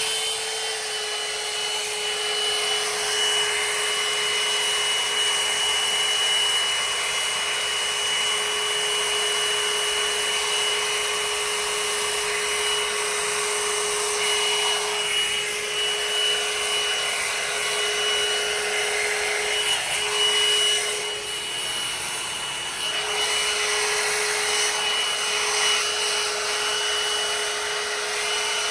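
Revlon One-Step hot-air brush dryer running on its highest setting: a steady motor whine over rushing air, holding one pitch, with a brief waver about three quarters of the way through.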